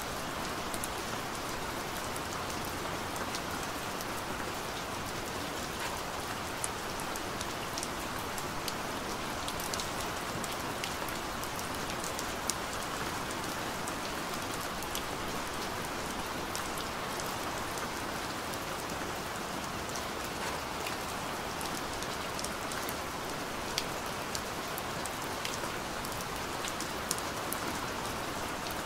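A steady, even hiss with many faint scattered ticks, like rain falling on a surface.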